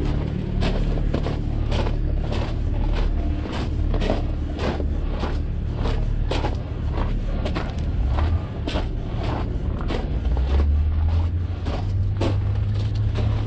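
A vehicle running with a deep, steady rumble that steps up in pitch near the end, under a regular series of sharp clacks about three a second.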